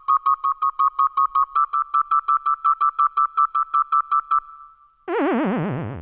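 Synthesizer beeps in a fast even run, about seven a second on one high note that steps up slightly about a second and a half in, stopping after about four seconds. About five seconds in comes a loud electronic 'game over' sound effect: a warbling tone that sweeps steadily down in pitch.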